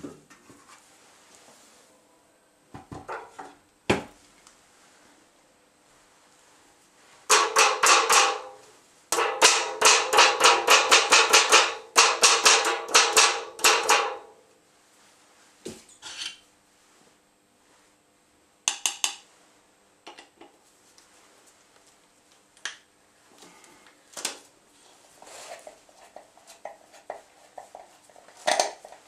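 Metal parts of a homemade Stirling-engine generator clinking and knocking as it is taken apart by hand. In the middle come two runs of rapid metallic clicking, the second lasting about five seconds; the rest is scattered single clicks and knocks.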